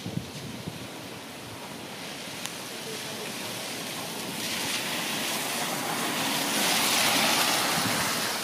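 Steady heavy rain and flowing storm runoff, with a car driving through the flooded road: its tyres hiss through the water, swelling louder past the middle and easing near the end.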